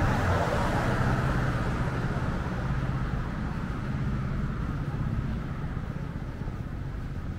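A vehicle passing close by on a city street, loudest right at the start and fading over the next couple of seconds, over a steady low hum of traffic.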